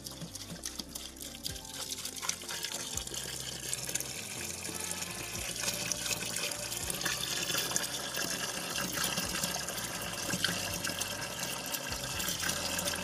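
Water pouring in a steady stream from a plastic jerrycan into a plastic bucket of chopped leaves, diluting the concentrated pesticide mix. The splashing grows louder over the first few seconds, then holds steady.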